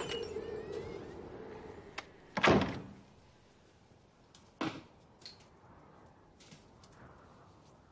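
A house's front door slammed shut about two and a half seconds in, after a steady hum fades in the first second. A second, lighter knock follows about two seconds later, then a few faint small clicks.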